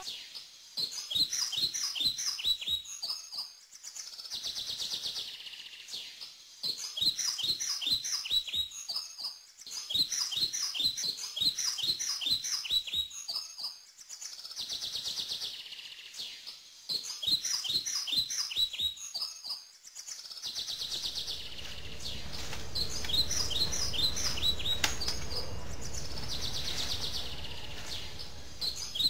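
Birds chirping in rapid runs of short high notes that repeat every few seconds, with a hissing trill between some runs. A low rumble joins about two-thirds of the way in.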